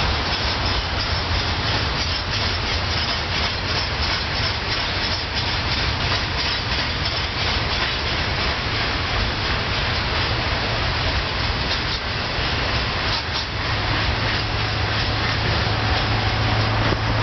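Double-stack intermodal freight train cars rolling past at a steady speed: a continuous rumble of steel wheels on rail, with faint scattered clicks.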